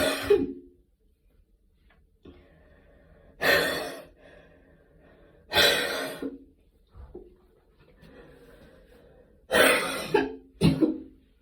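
A person coughing after a gym workout. There are five separate coughs a couple of seconds apart, and the last two come close together near the end.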